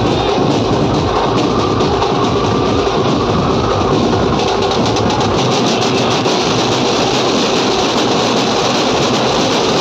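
A band's massed large drums beaten with long thin sticks in a fast, dense, continuous rhythm, loud throughout. The separate strokes stand out more sharply from about halfway through.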